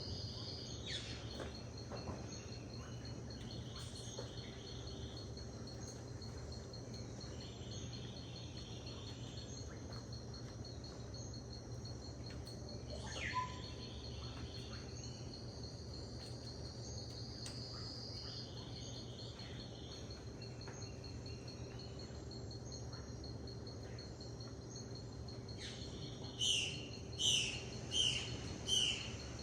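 Rainforest ambience: a steady, finely pulsing insect trill, with birds calling over it. There are a few falling whistles and short buzzy calls, then near the end a quick run of about five loud, sharp bird notes.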